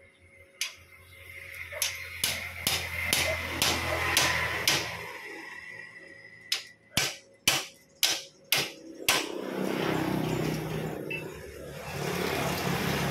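A string of sharp knocks, like metal being struck, about a dozen irregularly spaced over the first nine seconds. After that a steady rushing noise like a passing vehicle rises and holds.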